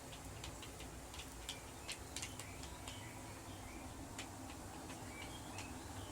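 Faint, irregular small clicks and ticks, thickest about two seconds in, with a few short high chirps over a steady low hum.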